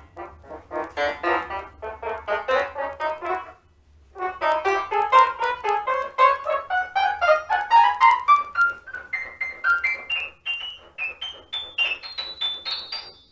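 Grand piano keys sounding one after another as they are wiped down with an antibacterial wipe. After a short pause about four seconds in, the notes step upward one at a time to the top of the keyboard.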